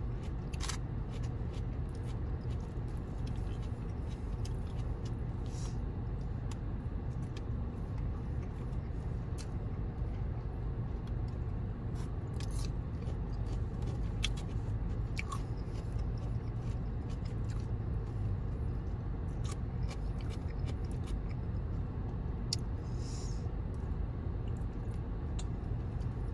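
Chewing and biting sounds of a person eating, with scattered small clicks and scrapes of wooden chopsticks against a foam takeout container, over a steady low hum inside a car cabin.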